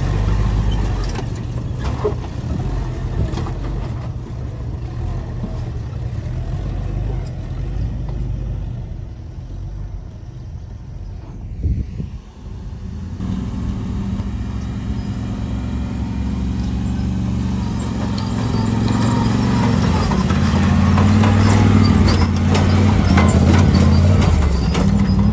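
Vintage flat-fender Jeep engine running, with a sharp knock about halfway through. After the knock the engine runs steadier and louder, growing louder again near the end.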